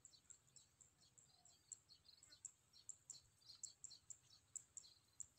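Near silence, with faint short high-pitched chirps repeating a few times a second.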